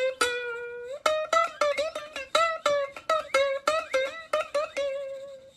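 Background music: a quick plucked-string melody of short, bending notes, about three a second, with one longer held note about a quarter-second in.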